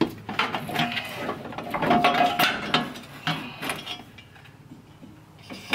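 Radiator being pulled up out of a truck's engine bay by hand, knocking and scraping against the surrounding plastic and brackets in a run of clatter that dies down after about four seconds.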